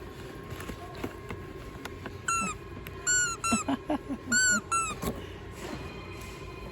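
A squeeze toy squeaking about six times in quick succession, each a high squeal that rises and falls in pitch, about two to five seconds in.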